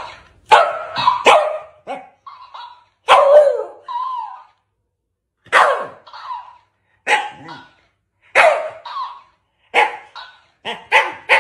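A Shiba Inu barking in short, sharp woofs at a plush duck toy, about ten barks at uneven intervals, with softer, shorter sounds between some of them.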